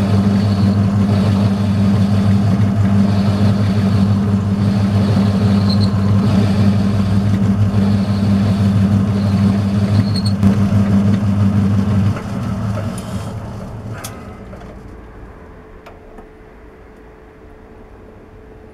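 Metal lathe running steadily, turning a shaft down to size between centres. It is switched off about twelve seconds in and runs down over a few seconds, with one sharp click soon after.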